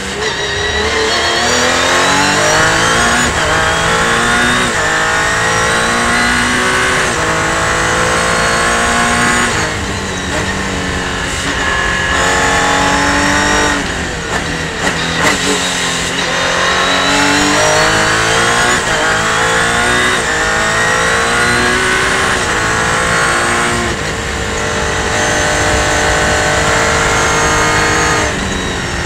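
Onboard sound of a Revolution 500 race car's engine at full throttle, its pitch climbing and then dropping back with each quick upshift. About ten seconds in it falls away as the car brakes and downshifts for a corner, then climbs through the gears again, before slowing and holding a steadier note near the end.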